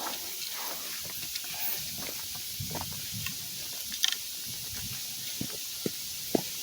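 Footsteps and rustling of brush and leaves on a rough trail, with a few sharp clicks and knocks in the second half, over a steady hiss.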